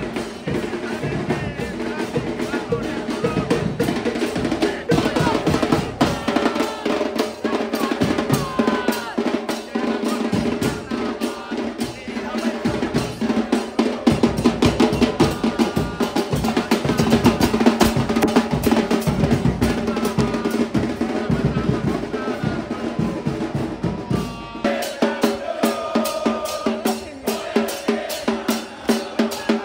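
Drum-driven music: a steady beat of bass drum, snare and rimshots with a melody over it. The bass drops away about five seconds before the end.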